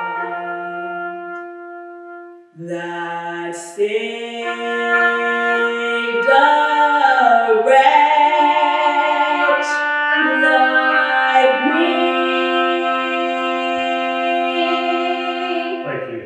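A woman singing long, held notes. There is a short break about two and a half seconds in, then the singing comes back fuller and louder and stops just before the end.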